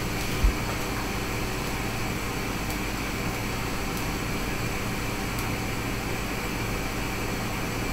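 Steady whir of a cooker hood extractor fan running above a gas hob, with one soft knock about half a second in.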